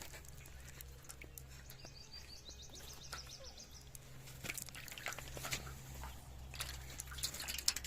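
A bird calls in a quick run of short, high notes about two seconds in, over a steady low hum. Scattered clicks and knocks come more thickly in the second half.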